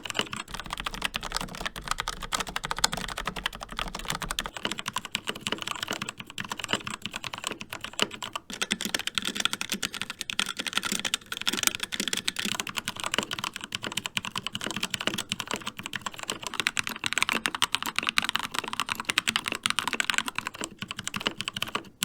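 Continuous fast typing on three mechanical keyboards in turn. First is a Logitech MX Mechanical with Kailh Brown switches, then about 8 seconds in a HyperX Alloy Origins with HyperX Red switches, then about 8 seconds later a Keychron K2 with Gateron Red switches. Each keyboard's clacking has a slightly different pitch and tone.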